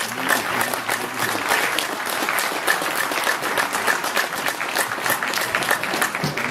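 Audience applauding: a dense, even run of many hand claps.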